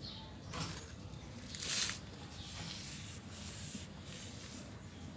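Engine and rim cleaner sprayed in short hissing bursts: a brief one about half a second in and a louder, longer one just before two seconds.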